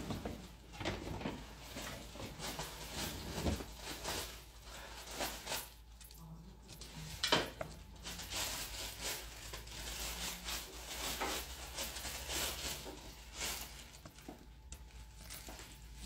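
Scattered light clicks, taps and rustles of small objects and packaging being handled, with a steady low hum underneath.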